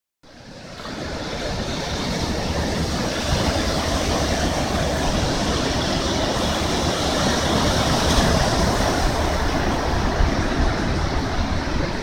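Ocean surf washing onto a sandy beach, a steady rush of waves, with wind rumbling on the microphone. It fades in from silence over the first couple of seconds.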